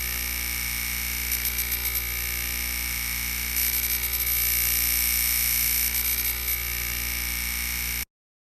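Synthesized science-fiction sound effect: a steady electronic drone of low hum and high whine, fluttering in pulses about a second in and again from the middle on. It cuts off abruptly near the end.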